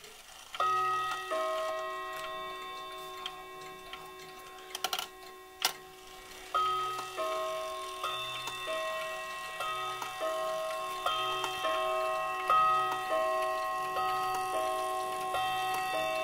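Weight-driven wall clock chiming. A ringing chord is struck about half a second in, then from about six seconds in comes a run of separate struck notes at changing pitches, each one ringing on. A few sharp clicks sound around five seconds in.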